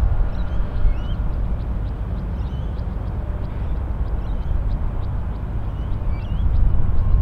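Low, steady rumble of an approaching Airbus A380-861's four Engine Alliance GP7200 turbofans on final approach, growing louder near the end. Small birds chirp repeatedly over it.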